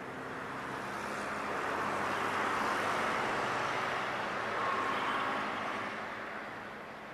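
A Strasbourg tram passing by: its rolling noise swells over the first couple of seconds, stays loud for a few seconds and fades toward the end, over a steady low hum.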